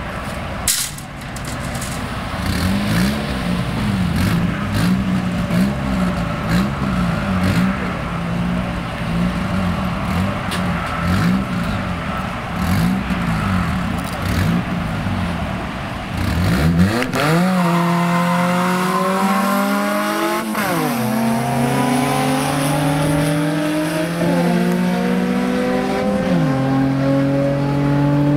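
Two street cars at a drag strip starting line, a Mazda MX-3 with a KLZE V6 swap and a turbocharged SOHC Honda Del Sol on 3 psi of boost, their engines revved up and down about once a second while staging. About seventeen seconds in they launch, engine pitch climbing hard and dropping back at each upshift as they accelerate away down the track.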